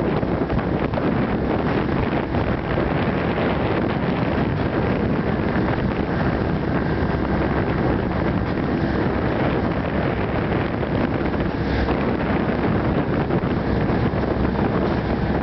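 Steady wind noise buffeting the microphone aboard a fast-running motorboat, with the rush of the boat's run underneath, unbroken throughout.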